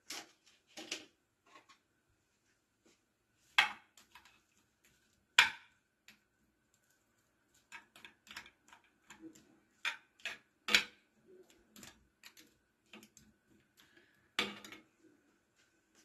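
A metal spoon clinking and scraping against a clay tagine dish while seafood is stirred in it: an irregular scatter of small clinks with a few louder knocks.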